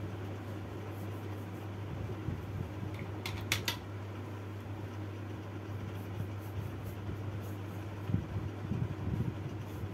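Steady low room hum, with a few sharp clicks about three and a half seconds in and soft low thumps near the end.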